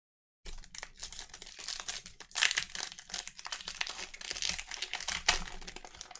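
Plastic-foil wrappers of Panini Prizm football card packs crinkling as they are handled and torn open, starting about half a second in and running as a continuous dense crackle.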